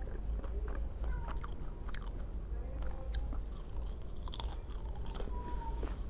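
Close-miked chewing and biting on food, with scattered crisp clicks and crunches, over a steady low hum.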